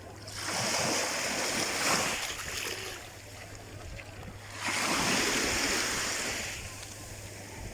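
Sea waves washing in twice, each surge of noise swelling and fading over about two seconds.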